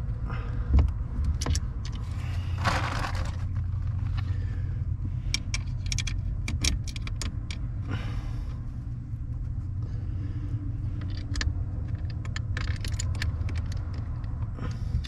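Scattered light metallic clicks and clinks of bolts and hand tools being handled while a boat's steering helm is bolted back on, with two short scraping patches about three and eight seconds in. A steady low rumble runs underneath.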